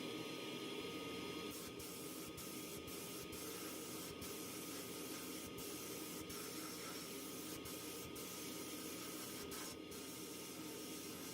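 Steady hiss of compressed air spraying from a nozzle, briefly broken several times.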